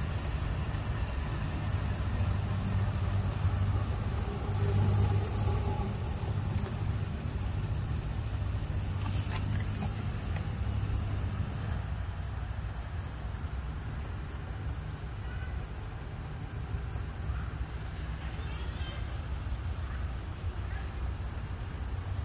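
Crickets trilling in a steady, high, pulsing chirr, over a low steady rumble.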